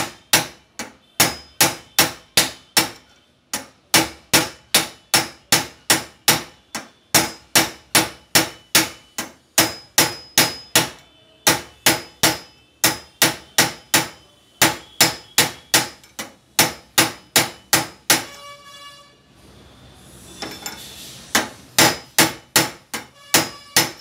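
Hand hammer striking steel during a gas mono shock absorber repair: quick, even blows at about three a second, each ringing briefly. The blows come in runs with short pauses, and a few seconds of rough metallic noise fall between runs near the end.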